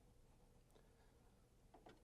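Near silence: room tone with a couple of faint clicks, about a second apart, from plastic parts being handled.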